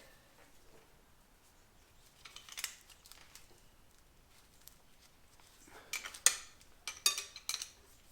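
Metal hand tools clicking and clinking against engine hardware during turbo removal. A few clinks come about two and a half seconds in, and a busier run of sharp clicks follows from about six seconds until near the end.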